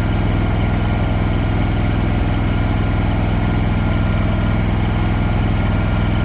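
Engine of a Hobart Champion Elite engine-driven welder running steadily at constant speed.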